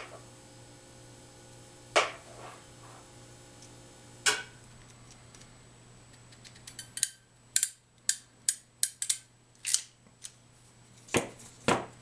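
Handheld HDMI crimp tool being worked on a connector during the pre-termination step, which trims the ribbon cable: single sharp clicks about every two seconds, then a quick run of about nine clicks past the middle and two more near the end.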